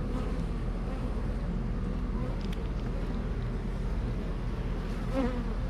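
Honeybees buzzing steadily around an opened hive, under a low, even rumble.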